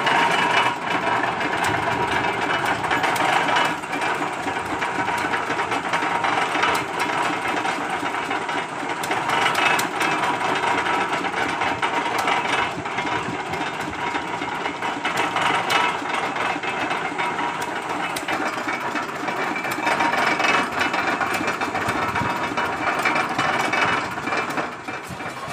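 Single-cylinder stationary diesel engine running steadily, turning a flat-belt pulley drive, with a dense mechanical clatter of rapid knocks.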